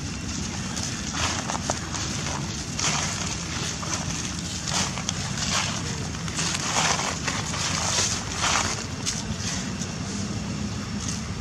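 Dry fallen leaves crunching and rustling underfoot in a run of irregular bursts, the loudest between about five and nine seconds in, over a steady low rumble.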